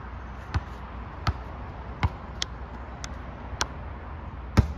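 Basketball dribbled on asphalt: sharp single bounces, roughly one every three-quarters of a second.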